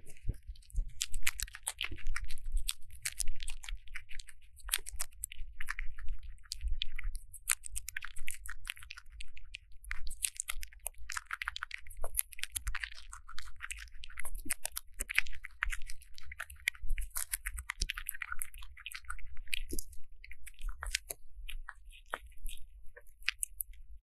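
A ground squirrel chewing a dandelion stem right up against a microphone: rapid, crisp crunching and nibbling that goes on continuously, over a low rumble.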